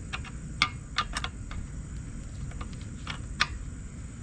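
Hand wrench working a motor-mount bolt loose on an 80cc motorized bicycle engine, giving scattered, irregular clicks and light metal clinks.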